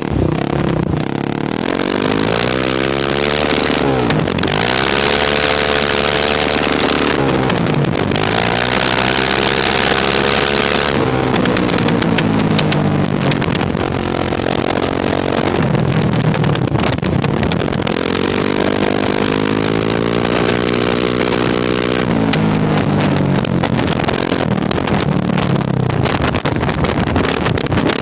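Kawasaki KFX 400 ATV's single-cylinder four-stroke engine, heard close to the muffler, revving up and dropping back over and over while ridden. In places a harsh static-like crackle runs over it, which the rider puts down to the engine popping and backfiring.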